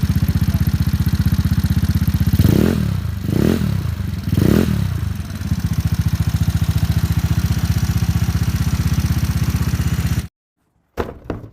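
Yamaha Mio Sporty scooter's single-cylinder four-stroke engine through an MTRT Evo V3 aftermarket exhaust, idling with an even putter. It is revved three times in quick succession, each rev rising and falling, and then settles back to idle until the sound cuts off near the end.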